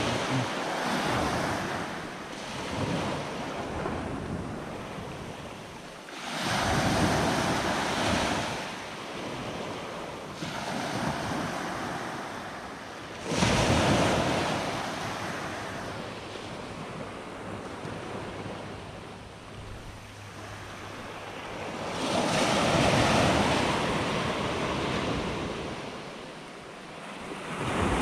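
Surf breaking and washing up a beach, rising and falling in long swells every few seconds, the loudest coming in abruptly about halfway through, with wind blowing on the microphone.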